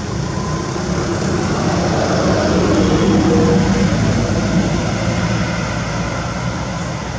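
Steady low rumble of passing motor-vehicle noise that swells to a peak around the middle and then fades.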